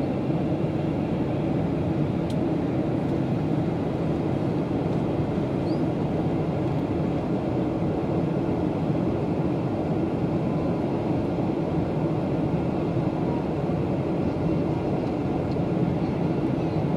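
Steady drone of a Boeing 737's jet engines and rushing airflow, heard inside the passenger cabin on approach.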